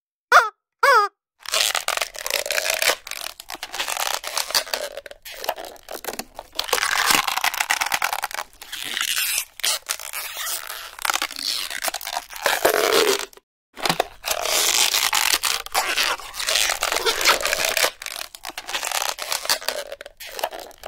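Close, rough rustling and scraping of hands rubbing and pressing over a face in a facial massage, in irregular strokes with short pauses.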